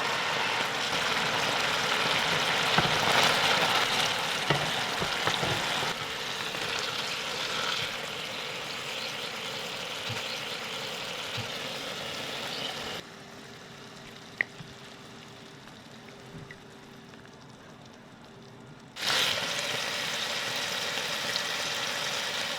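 Food frying in oil in a pan, a steady sizzle with a few short knocks. About two-thirds of the way in it drops abruptly to a much quieter stretch with a faint steady hum and a single clink, then the loud sizzle returns suddenly.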